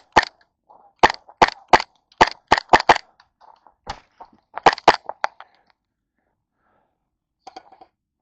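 Airsoft gun firing single shots in quick succession, about a dozen sharp cracks in uneven runs of two to four, stopping about five seconds in.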